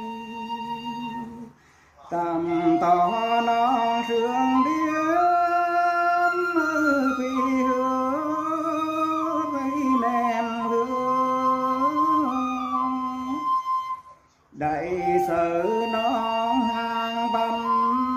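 A voice singing hát sli, the Tày–Nùng folk song: long held notes that slide slowly up and down. The singing comes in phrases, with a short pause about two seconds in and another about three-quarters of the way through.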